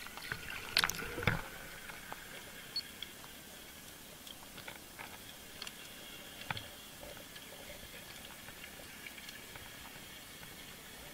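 Underwater sound picked up by a speargun-mounted camera: a steady wash of water noise, with a quick cluster of knocks and clicks about a second in and scattered faint clicks after.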